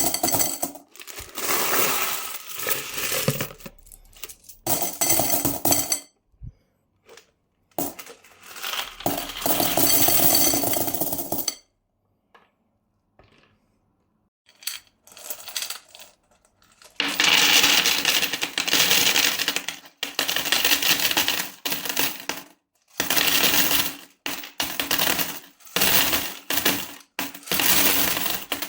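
Coins pouring and scattering: dense metallic jingling in bursts of a few seconds each, with short pauses between them and a near-silent stretch a little before the middle.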